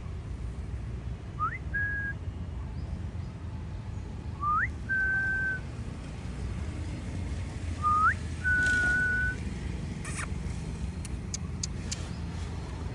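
Three whistles a few seconds apart, each a quick upward swoop followed by a held steady note, over a low steady rumble. A few short clicks near the end.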